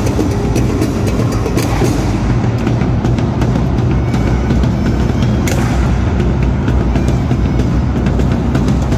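Loud, bass-heavy dance music with drums and many sharp percussive hits, steady throughout.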